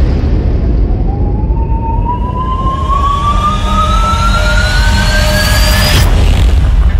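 Trailer music sound design: a low drone under a single rising tone that climbs steadily for about five seconds, ending in a sharp hit near the end.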